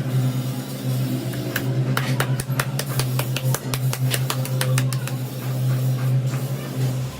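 Workshop noise: a steady low machine hum, with a run of quick sharp knocks, about four a second, from a couple of seconds in until about two seconds before the end.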